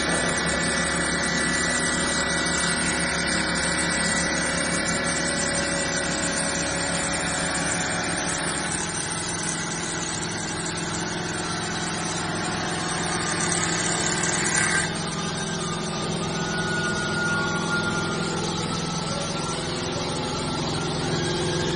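Wanlong WLCNC-500 bridge saw cutting granite with its water-cooled diamond blade: a steady motor hum under a hissing, grinding cut. About fifteen seconds in, a high tone in the grind cuts off suddenly and the sound drops slightly.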